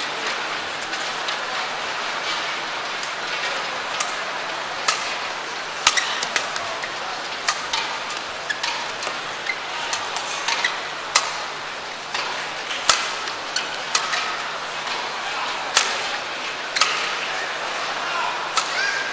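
Badminton rackets striking a shuttlecock in a long rally, sharp irregular hits every half second to second and a half, over a steady murmur of arena crowd noise.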